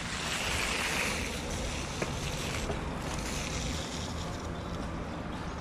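Steady rushing outdoor noise, wind across the microphone, with a single faint click about two seconds in.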